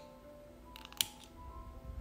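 Soft background music with held notes, and one sharp click about a second in.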